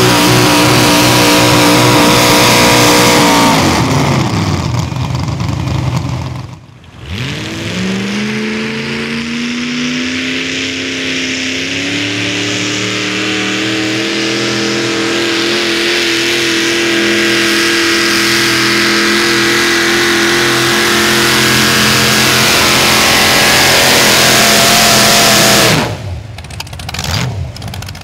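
A mini rod pulling tractor's engine running at high revs, its pitch falling away a few seconds in. After a short lull an engine climbs in pitch, holds wide open for about eighteen seconds, then cuts off abruptly near the end.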